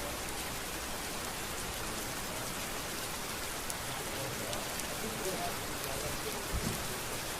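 Steady rain falling on a street, with a brief low thump about six and a half seconds in.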